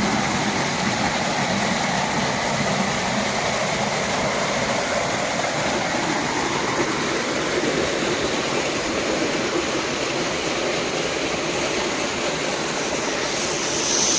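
Small rocky waterfall: a steady rush of water splashing down over the rocks.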